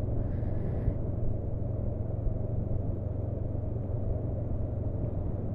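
Honda CB500F's parallel-twin engine running steadily while riding, mixed with a low, even rumble of wind and road noise.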